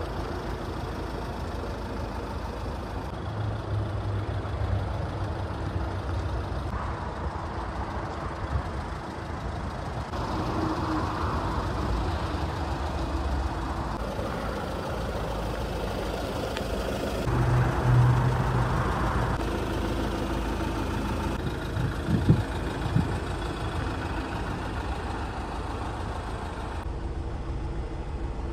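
Iveco Daily's 2.3-litre diesel engine idling steadily, with a few sharp knocks about two-thirds of the way through.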